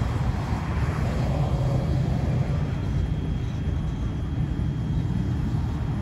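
Steady low rumble of vehicles, with no distinct events.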